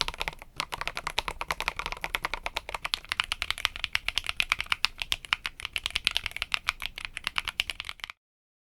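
Mechanical keyboard with Haimu Sea Salt switches on a metal plate, typed fast and continuously in a dense run of keystroke clicks. It stops suddenly near the end.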